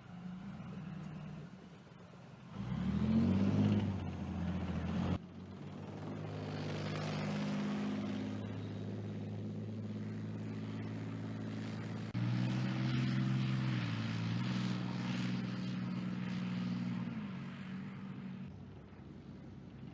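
Leopard 2 tanks' V12 diesel engines running and revving as the tanks move. A rev rises about two and a half seconds in and cuts off abruptly, then a steadier engine drone follows. A louder rev comes in suddenly about twelve seconds in and eases off near the end.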